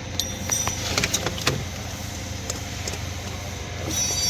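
A few light clicks and knocks from parts and tools being handled on a car engine, over a steady low hum. A brief hiss comes near the end.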